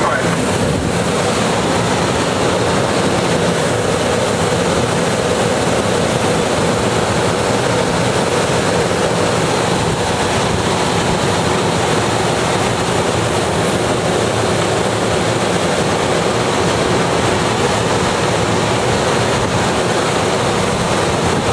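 Steady, loud rush of air over the canopy heard inside a glider's cockpit while on aerotow, with the tow plane's engine droning ahead.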